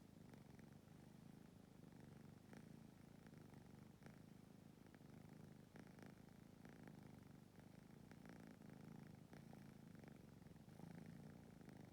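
Domestic cat purring softly and steadily, with a few faint ticks.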